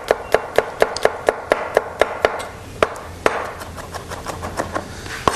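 Chef's knife finely chopping chilli and garlic on a plastic cutting board: quick, even taps of the blade on the board, about four or five a second, thinning to a few separate strokes after about two seconds.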